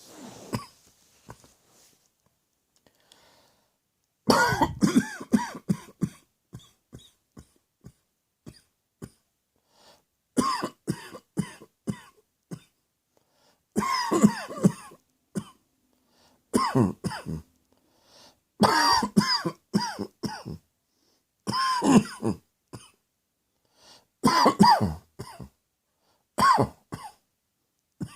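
A person coughing with the mouth closed: muffled bouts of several quick coughs each, about eight bouts a few seconds apart. Short faint clicks come between the bouts.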